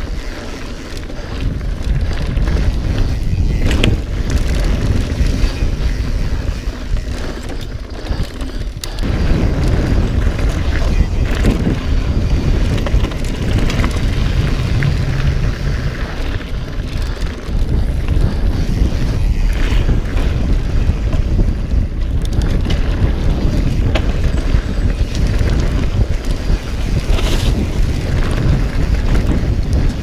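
Wind buffeting the microphone of a camera on a mountain bike rolling along a dirt singletrack, a steady low rumble with tyre noise and scattered clicks and rattles from the bike over bumps.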